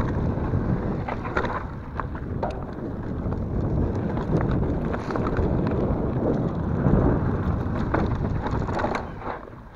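Wind rushing over the microphone and mountain bike tyres rolling fast over a dry dirt trail, with frequent rattles and knocks from the bike over bumps and stones. It dies down about nine seconds in as the bike slows.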